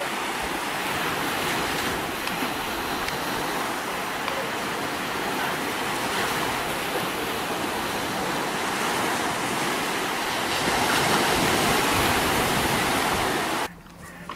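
Steady rushing noise of ocean surf breaking on the shore, cutting off abruptly shortly before the end.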